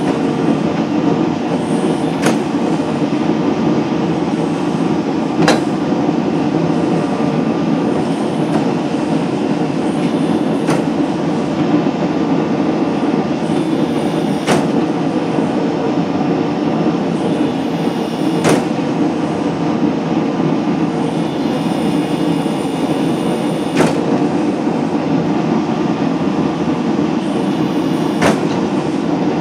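Hydraulic forging press running with a steady drone from its pump while its flat dies squeeze a red-hot steel blade, with a sharp click every four or five seconds.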